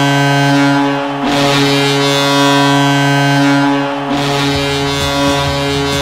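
Hockey arena goal horn blowing in long, steady multi-tone blasts of about three seconds each, with reverb added. From about four seconds in, the drum beat of the goal song comes in under the horn.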